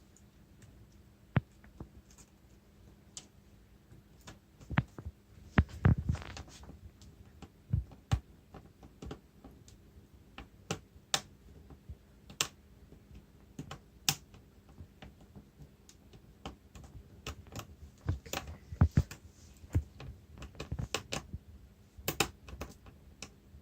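Small screwdriver and screws clicking and tapping against a laptop's screen frame and plastic lid as the screen is screwed back in: scattered, irregular clicks and light knocks, busier about a quarter of the way in and again past three quarters.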